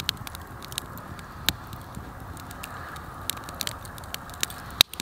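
Wood campfire crackling: irregular sharp pops, a few each second, over a low steady hiss.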